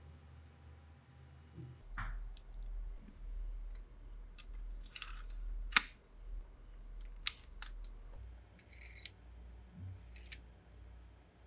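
Plastic Lego Technic parts clicking and knocking as they are handled: a series of sharp separate clicks and short rattles, the loudest near the middle, over a faint low hum.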